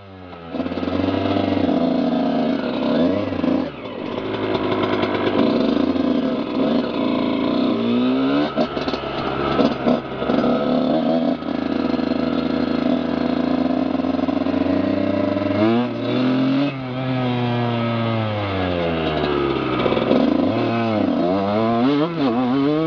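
Motocross bike engine heard close up from the rider's neck brace, revving hard and held high for long stretches, then rising and falling quickly again and again near the end as the throttle is opened and closed.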